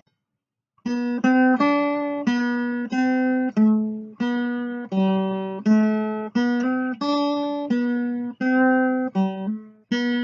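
Background music: a slow melody of single plucked notes, about two notes a second, starting about a second in.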